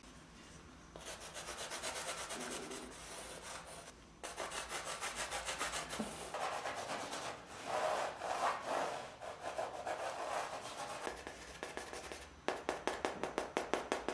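A stick of charcoal scraping and rubbing across canvas in quick back-and-forth strokes, several a second. The strokes start about a second in, break off briefly around four seconds, and come faster and sharper near the end.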